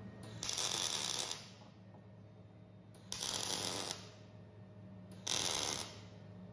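Arc welding: three short tack welds, each under a second, fixing a conveyor roller's end plate and shaft in place before it is welded round. Each tack is a burst of crackling, over a steady low hum.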